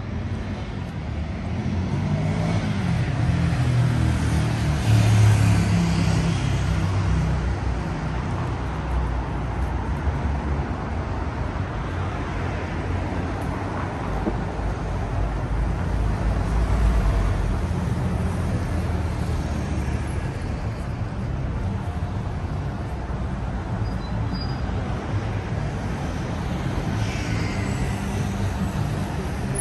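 City road traffic: a steady rumble of passing cars and other motor vehicles, swelling about five seconds in and again around seventeen seconds.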